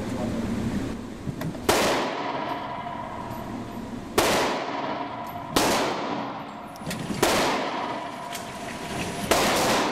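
Five gunshots, spaced one and a half to two and a half seconds apart, each with a short reverberant tail.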